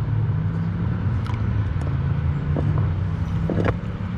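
Outboard jet boat motor running steadily at low speed, a continuous low hum, with a few light knocks.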